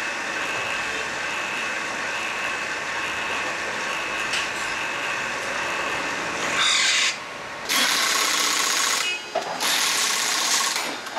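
Audi A8's rear electronic parking brake caliper motors whirring steadily during a parking brake function test. From about six and a half seconds in, a pneumatic impact wrench rattles on the wheel bolts in four bursts of about a second each, with short pauses between them.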